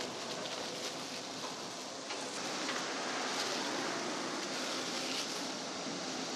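Soft rustling and crackling of a thin plastic glove and stringy jackfruit flesh as bulbs are pulled free by hand, over a steady background hiss.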